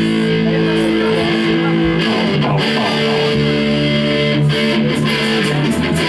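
A live rock band plays electric guitar and electric bass, holding sustained chords that change every second or two.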